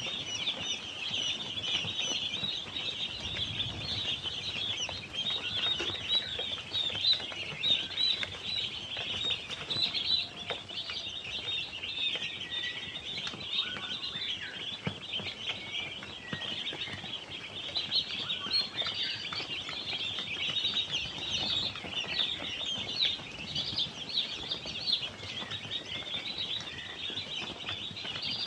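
A crowd of young chickens peeping nonstop, many high chirps overlapping into one dense chorus.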